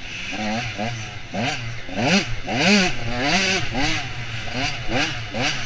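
Off-road dirt bike engine revving up and down over and over as the throttle is worked, its pitch rising and falling about twice a second, over a steady rushing hiss.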